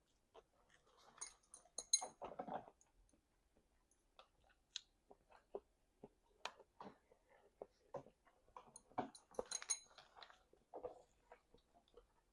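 A person chewing food with the mouth open: wet smacking and clicking mouth sounds, with two busier spells of bites and chewing about two seconds in and again around nine to ten seconds in.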